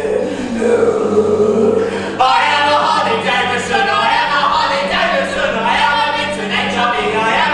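Choral music: voices singing together over a steady low drone, growing fuller a little over two seconds in.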